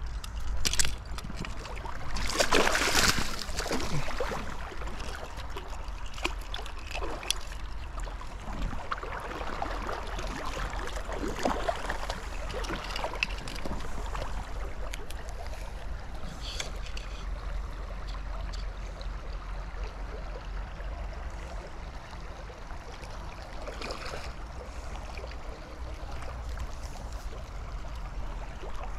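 Shallow river water running and lapping around a wading angler, over a steady low rumble of wind on the microphone. A louder burst of noise comes about two to four seconds in, with a few brief clicks later.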